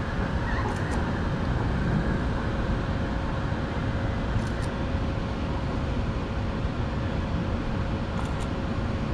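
A train rolling past: a steady, unbroken rumble of wheels on the rails.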